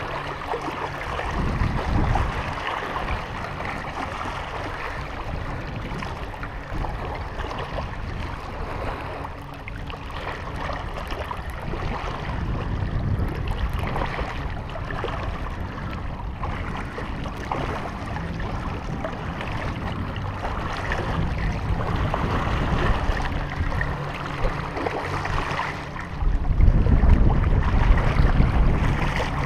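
Small lake waves lapping and splashing against shoreline rocks, with wind rumbling on the microphone. The wind is strongest about two seconds in and again near the end.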